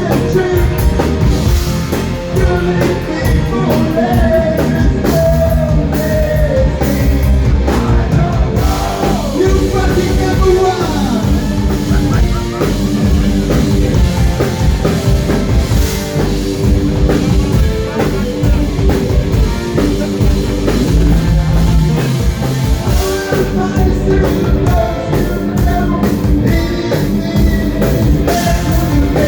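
Live rock band playing a heavy rock song with drum kit and electric guitar.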